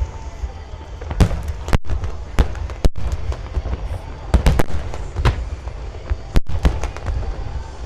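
Aerial fireworks shells bursting in a rapid, irregular series of sharp bangs over a constant deep booming rumble.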